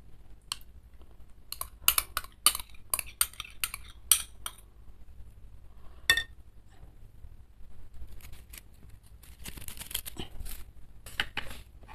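Metal spoon clinking and scraping against a small glass jar as chili sambal is spooned out onto a bowl of meatball soup, a quick run of sharp clinks in the first few seconds and one more a little later. Near the end come dry scraping and rustling as the large kerupuk crackers are handled.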